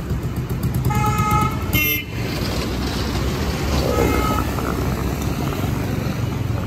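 Street traffic running steadily, with vehicle horns tooting briefly three times: about a second in, just before two seconds, and about four seconds in.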